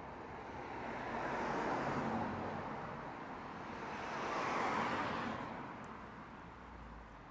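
Two road vehicles passing close by, one after the other: the hiss of tyres on the road swells and fades for each, the second about three seconds after the first.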